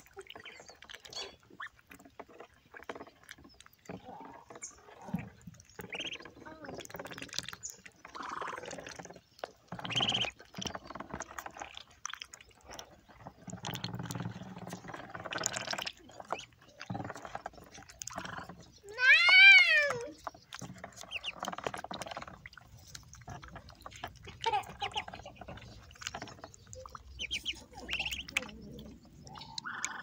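Ducklings dabbling and drinking from a shallow tub of water: scattered small splashes and bill clicks. About two-thirds of the way through comes one loud, brief run of quick rising-and-falling calls, the loudest sound.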